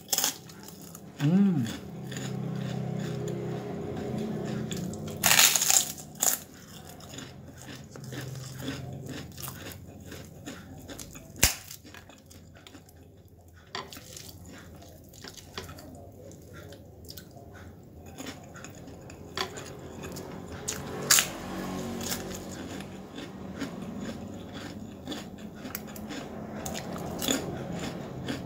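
A person biting and chewing crunchy boiled cabbage close to the microphone. A few sharp crunches stand out, the loudest about five seconds in and again near the twenty-second mark, between stretches of quieter chewing.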